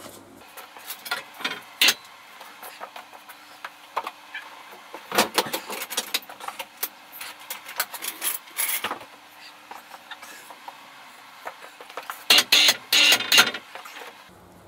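Irregular metal clanks and rattles in several bursts as a motorcycle is lowered off its rear stand onto its side stand.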